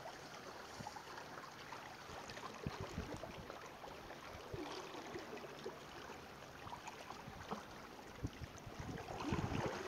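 Coastal ambience: wind on the microphone over a steady wash of surf, with low gusts thumping now and then and a louder gust near the end.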